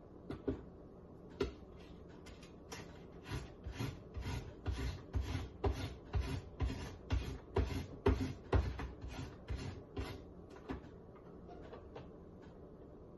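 Fresh ginger root being grated by hand: a steady run of strokes, about two a second, with a few separate strokes at first and thinning out near the end.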